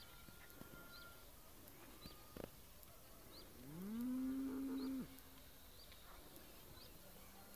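A cow mooing once, about three and a half seconds in: one call that rises in pitch, holds, and cuts off after about a second and a half. Faint high bird chirps repeat in the background.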